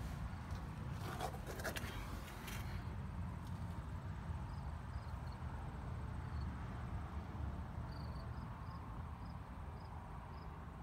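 A 1957 Chrysler New Yorker's 392 Hemi V8 idling, a steady low rumble, with a few handling knocks in the first couple of seconds. Crickets chirp faintly in the second half.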